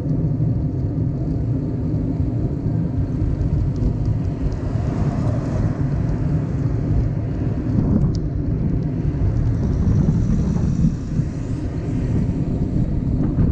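Steady low wind rumble buffeting the microphone while cycling along a road.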